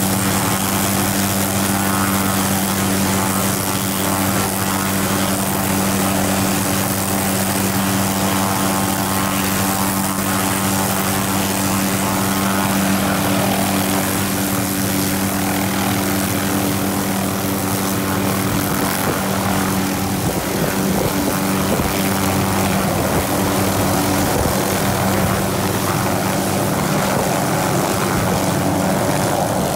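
Small helicopter running on the ground with its rotor turning: a steady hum and whine over rotor noise. In the second half it grows rougher and gustier as it pulls power and lifts off near the end.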